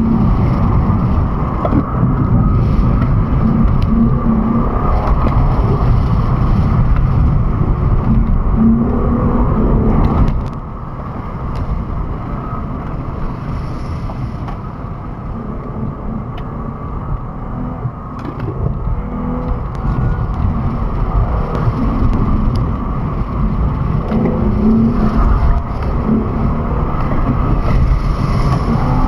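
A car running hard on an autocross course, a steady engine and rushing noise. It drops somewhat about a third of the way in and rises again near the end.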